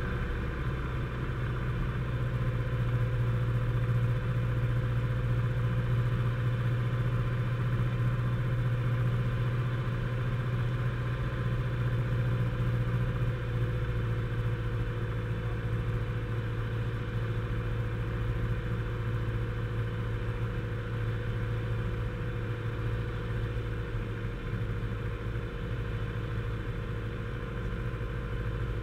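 Grumman AA-5A Cheetah's four-cylinder Lycoming O-320 engine and propeller droning steadily, heard from inside the cabin while the plane descends to land.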